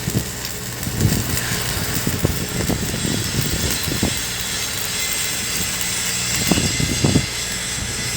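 Electric arc welding: a steady hiss from the arc over a constant low machine hum, with no popping, which marks a clean, smooth weld.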